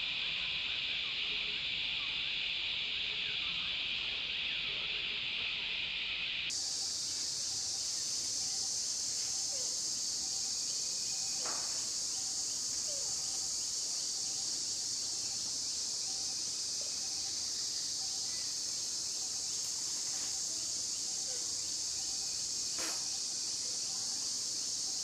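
A steady, unbroken drone of insects, typical of a cicada chorus. About six seconds in it jumps abruptly to a higher pitch, with two faint clicks later on.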